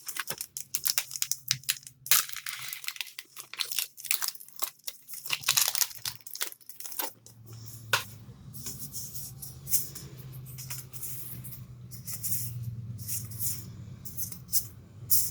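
Foil Magic: The Gathering booster pack wrapper being torn open and crinkled, a dense run of crackling for about the first seven seconds. After that come short, scattered rustles over a low steady hum.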